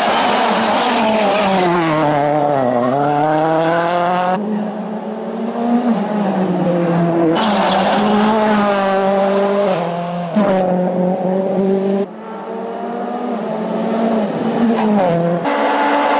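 M-Sport Ford Fiesta RS WRC rally car, its 1.6-litre turbocharged four-cylinder engine revving hard, the pitch dropping and climbing again and again through braking, gear changes and acceleration. The sound cuts abruptly several times, about 4, 7, 10 and 15 seconds in.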